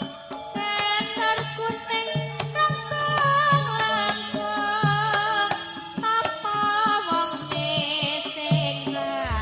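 Live Javanese ensemble music in the pelog scale (pathet nem): melodic instruments play short stepped notes over repeated hand-drum strokes.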